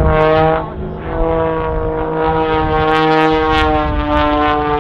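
Zivko Edge 540 aerobatic plane's engine and propeller running at high power overhead, a steady drone with many overtones whose pitch slides slowly down.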